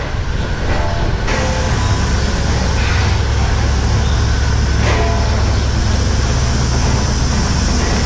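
Steady low mechanical hum of milking-parlour machinery running, with an even hiss that comes in about a second in.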